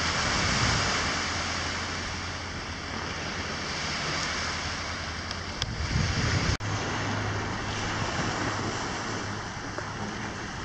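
Small waves washing onto a pebbly beach as a steady wash, with wind buffeting the microphone at times.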